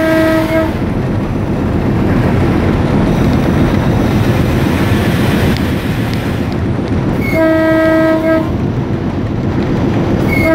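Diesel locomotive running, heard from inside its cab with steady engine and wheel-on-rail noise. Its multi-tone air horn sounds as the train approaches a station: one blast ends about half a second in, another of about a second comes near seven seconds in, and a third starts at the very end.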